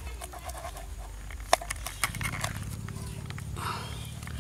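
Knife cutting through a water snake onto a wooden chopping board: a few sharp knocks, the loudest about one and a half seconds in, over a low steady hum.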